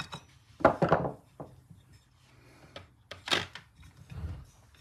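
A few knocks and clunks from the propeller end of a British Seagull outboard being handled on the bench, the loudest about a second in and two smaller ones later.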